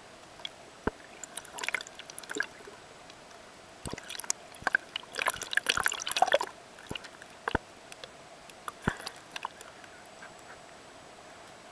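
Water heard through an underwater camera: scattered sharp clicks and bubbling, thickening into a dense patch of bubbly splashing about four to six seconds in, over a faint steady hum.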